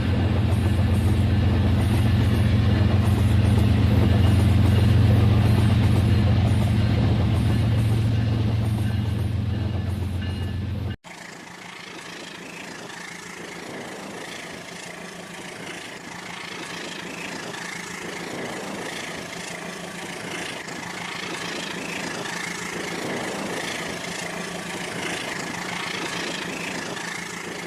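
Model train running: a loud, steady low hum at first, then after an abrupt cut about eleven seconds in, a quieter running sound with a thin steady whine.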